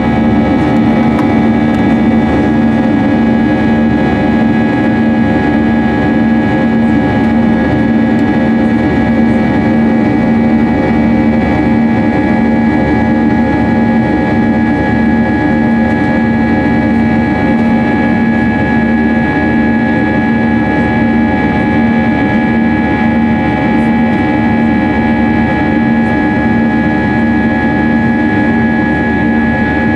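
Airbus A320-200's jet engines heard from inside the passenger cabin: a steady, loud drone with a constant hum and a few fixed whining tones that hold level throughout, with no change in power.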